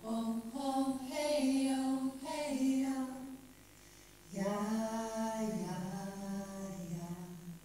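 A woman's voice singing unaccompanied in long held notes that step slowly from pitch to pitch. There are two phrases, with a pause of about a second between them. The voice is heard from a video being played back into the room.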